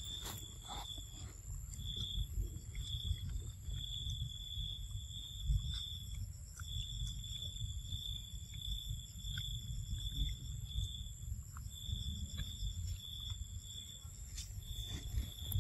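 Insects trilling at one high pitch in repeated bursts, with a steady high insect whine behind them, over a low background rumble.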